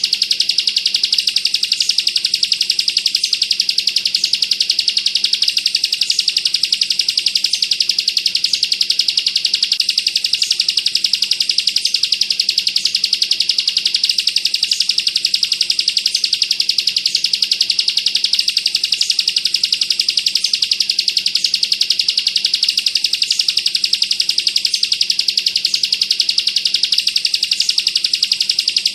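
Bar-winged prinia (ciblek) singing its 'bren' song: an unbroken, very rapid rattling trill of high notes, with a short, sharper high note recurring about every second and a half.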